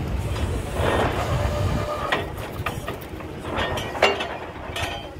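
Truck-mounted borewell drilling rig running with a steady low rumble, with several sharp metallic clanks from steel drill pipe being handled, the loudest about four seconds in.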